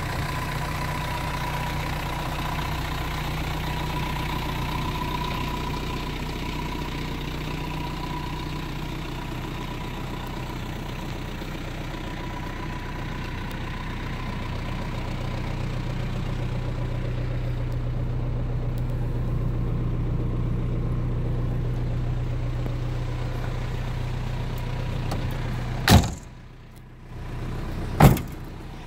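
Land Cruiser BJ74's 3.4-litre 13B-T four-cylinder turbo diesel idling steadily. Near the end, two sharp bangs about two seconds apart as the rear barn doors are shut.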